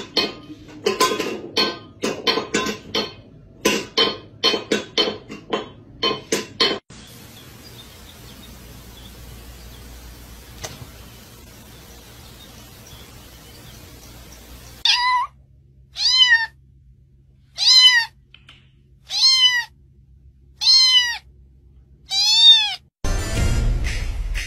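Domestic cat meowing six times, about one and a half seconds apart, each call rising then falling in pitch, after a stretch of quick plucked-note music and a faint steady hiss.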